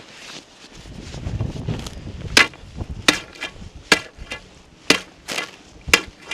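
Repeated sharp strikes on thin lake ice, about one a second, each a hard crack with a brief ringing tail, after a rougher low crunching in the first two seconds. The ice is being struck to test it, and it is too thin to walk on.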